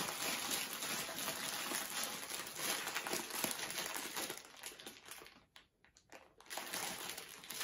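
Plastic cookie bag crinkling as it is twisted and gathered shut, ready to be closed with a clothespin. There is a brief pause about five and a half seconds in, then the crinkling starts again.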